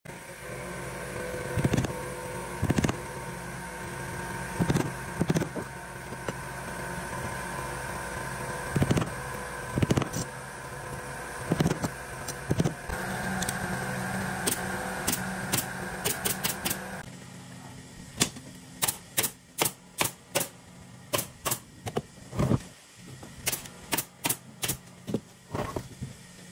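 Pneumatic upholstery staple gun firing staples into a wooden furniture frame. Single sharp shots come every second or two over a steady hum, then rapid runs of several shots a second.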